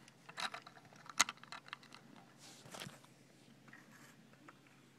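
Scattered light clicks and taps of LEGO plastic pieces being handled, the sharpest about a second in, with a brief rustle near the middle.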